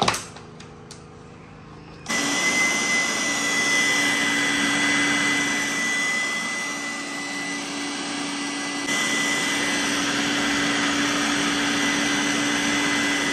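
Electric stand mixer with a wire whisk whipping egg whites in a glass bowl. A knock right at the start, then the motor switches on about two seconds in and runs steadily with a high whine.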